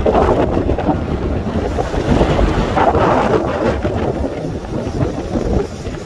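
Loud, rough wind buffeting the microphone over surf breaking on a rocky shore, the noise swelling with the gusts and the breaking waves.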